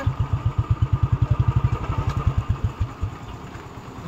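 Motorcycle engine idling with a rapid, even beat, then cutting out about three seconds in.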